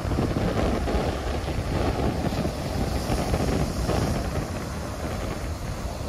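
Ocean surf washing onto a sandy beach, with wind buffeting the microphone in a steady low rumble.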